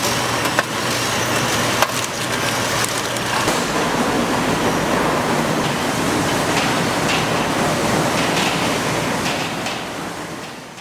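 Factory production-line machinery running: a dense, steady clattering hiss with a few sharp clicks and a low hum through the first half, fading out near the end.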